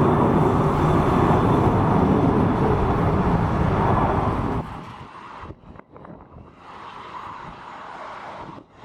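Airbus A300 freighter's jet engines, a loud steady rumble mixed with wind buffeting the microphone. About four and a half seconds in it cuts off abruptly, leaving quieter, gusty wind noise on the microphone.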